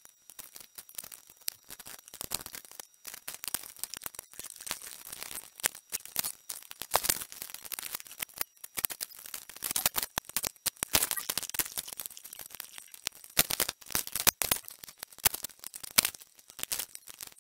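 Irregular clicks, taps and rattles of hands and tools working a television circuit board during desoldering, sparse at first and busier and louder from about six seconds in.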